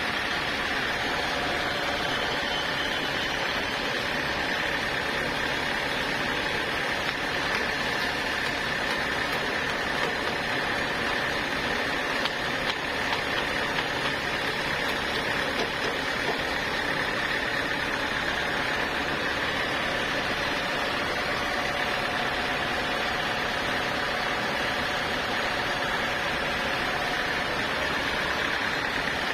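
Sawmill saw running steadily: an even mechanical hum with a steady high whine over it.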